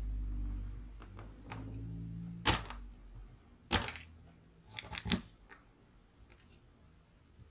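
Small flat screwdriver prying at the metal retaining clips on the plastic gearbox housing of a Bosch GSB 18V-EC drill: low rubbing and handling noise at first, then several sharp clicks and snaps, the loudest about four seconds in and a quick cluster about a second later.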